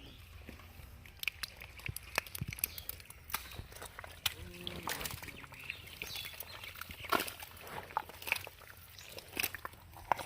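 Irregular small splashes, sloshes and squelches of hands and bodies working in shallow, muddy pond water while groping for fish.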